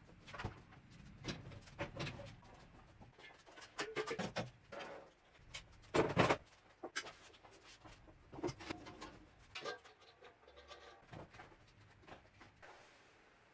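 Scattered knocks and clinks of objects being handled, irregular and without a steady rhythm, the loudest about six seconds in.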